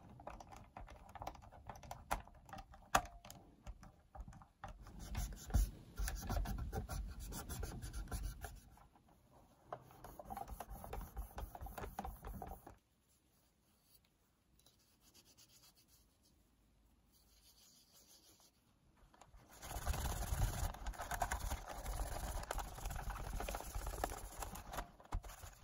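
A cloth wiping and rubbing over the plastic case of a personal radio cassette player, in spells with small clicks of hands and the unit being handled, and a few seconds of near quiet midway.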